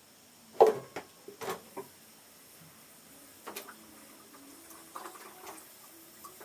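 Kitchenware clattering: a series of sharp knocks, the loudest about half a second in, then several smaller ones, as pots and utensils are handled while water is put on to boil for coffee.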